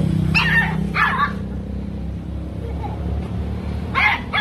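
Small dog yapping: two sharp, high barks about half a second apart near the start, then two more near the end, over a steady low hum.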